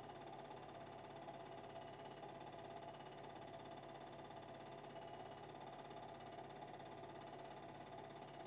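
Faint steady hum and hiss with no distinct events: the noise floor of a silent film's soundtrack.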